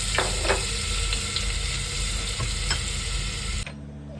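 Butter sizzling in hot olive oil in a pressure cooker pot, with a few light clicks. The sizzle drops away suddenly near the end.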